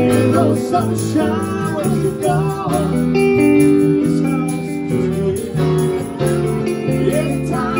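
A live band playing a song together: acoustic and electric guitars, piano and a tambourine, with a lead line that wavers and bends in pitch in the first few seconds.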